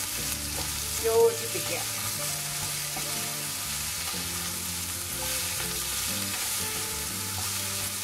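Okra and sliced onion sizzling in hot coconut oil in a pan, stirred with a wooden spatula that scrapes and turns the pieces, briefly louder about a second in.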